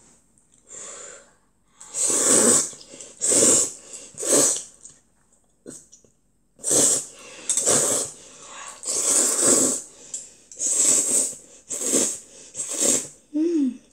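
A child slurping jjamppong noodles off chopsticks: a string of short, hissy slurps, about ten in all, in two runs with a pause in the middle.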